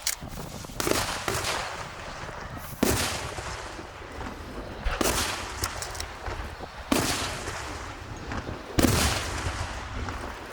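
Aerial fireworks shells bursting: five loud bangs about two seconds apart, each fading out, with smaller crackles between them.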